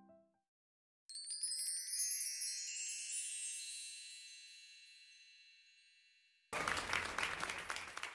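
A chime effect: a shimmering run of high, bright bell-like notes that starts about a second in and fades slowly over several seconds. Near the end a sudden burst of noise follows.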